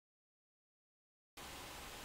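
Near silence: dead silence for the first second and a half, then a faint steady hiss of room tone.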